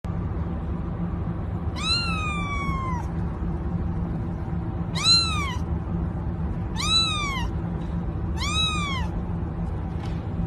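Kitten meowing four times, each call rising and then falling in pitch. The first meow is the longest, about a second, and the next three are shorter. A steady background noise runs underneath.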